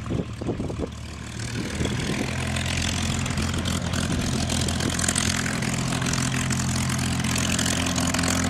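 P-51 Mustang's Packard Merlin V-12 engine and propeller at takeoff power on the takeoff roll. The engine swells about two seconds in as the throttle comes up, then holds a steady, loud drone.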